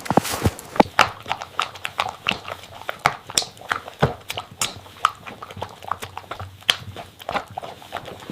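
A dog drinking, making irregular wet smacking and clicking sounds, a few a second.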